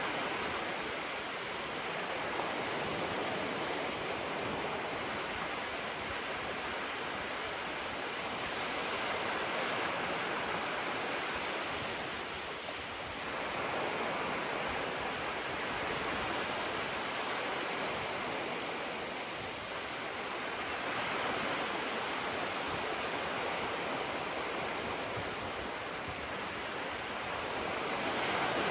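Small waves washing onto the shore in a continuous surf hiss that swells and eases slowly, dipping briefly twice.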